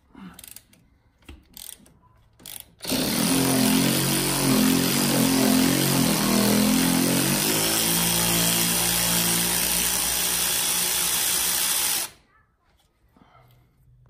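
Cordless electric ratchet running for about nine seconds with a slightly wavering whine, then stopping suddenly, backing out the steering column bolt where it goes into the steering gear. A few light clicks come before it starts.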